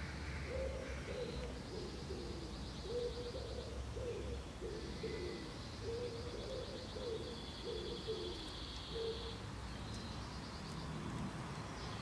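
A wild pigeon cooing in repeated low phrases of several notes, stopping about three quarters of the way through, with a high, fast trill running alongside in two long stretches.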